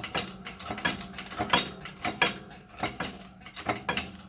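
Sharp metallic clicks and cracks, irregular at about two to three a second, from a crank pressing jig as a YZ125 two-stroke crankshaft's pin is pressed into the flywheels under about 5 tons of pressure.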